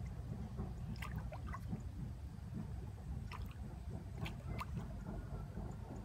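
Small splashes and gurgles of water from a hooked tilapia struggling at the surface, a few sharp ones scattered through, over a steady low rumble.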